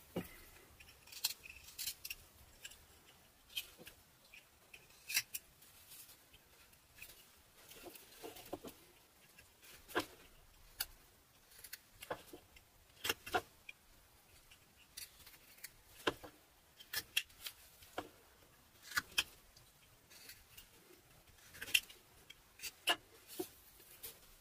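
Whittling knife slicing short cuts into a block of butternut wood, each stroke a crisp scrape or click, coming at an irregular pace.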